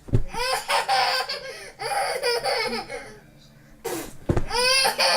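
Two short, low hand-made fart noises, squeezed air between cupped hands, one just after the start and one about four seconds in. Each is followed by a long bout of high-pitched laughter.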